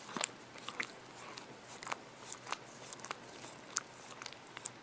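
Hairless munchkin cat licking a glass screen: irregular wet clicks and smacks of its tongue and mouth on the glass, a few each second.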